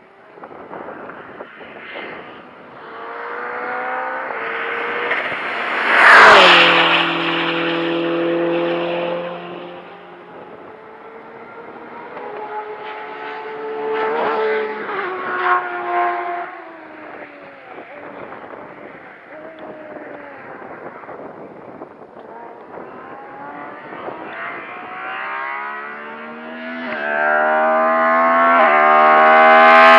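Race car engines at speed on a circuit: a car passes close about six seconds in, its engine note falling as it goes by, and is then heard further off changing gear. Near the end another car approaches, its revs climbing through quick upshifts and getting loud.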